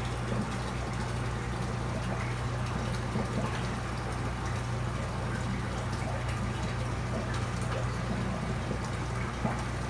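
Steady low hum of an aquarium air pump, with water bubbling and splashing from the tank's air-driven sponge filters.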